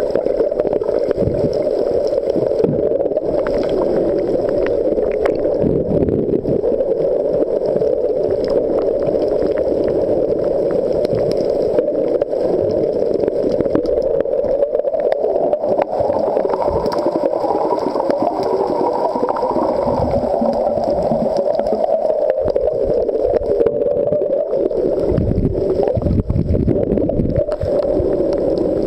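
Steady, muffled rushing and gurgling of water, heard through a camera held underwater, with heavier low surges near the end.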